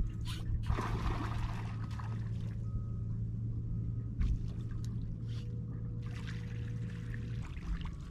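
A big hooked fish splashing and churning at the water surface beside the boat, loudest about a second in, over a steady low hum that stops near the end.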